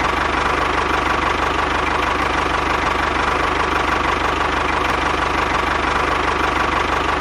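Tractor engine idling steadily, with a rapid, even knock.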